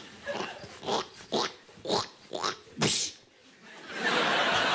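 Short mouth-made sound effects from a performer, about two a second, some sweeping up in pitch. About four seconds in, a studio audience breaks into laughter.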